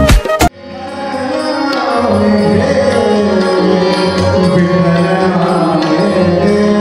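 A quick run of tabla strokes ends about half a second in. A male voice then sings a long, sustained devotional line over a held harmonium drone, swelling in level and then holding steady.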